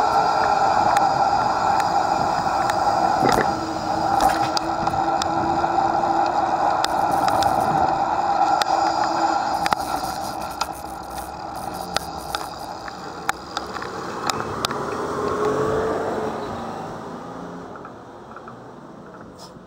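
Rolling bicycle heard from a camera mounted on it: a steady rush of tyre and wind noise with scattered sharp rattles from bumps in the road. It fades near the end as the bicycle slows to a stop.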